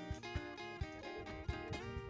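Background music: guitar chords over a steady beat of about two low thumps a second.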